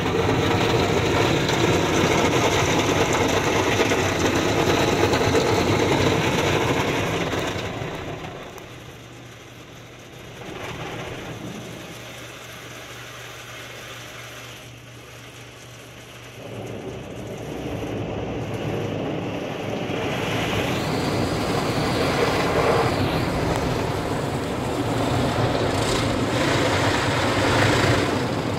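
Automatic car wash water jets spraying over the car, heard from inside the cabin: a steady rush of water on the windshield and body. It drops away for several seconds in the middle, leaving a low steady hum, then builds back up.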